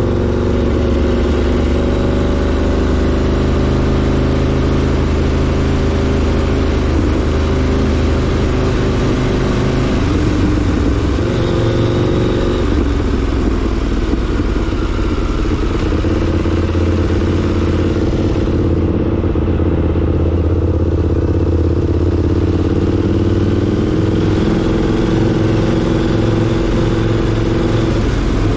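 KTM 890 Duke's 889 cc parallel-twin engine running steadily as the motorcycle is ridden. The engine note changes pitch about halfway through and again a few seconds later as the speed or gear changes.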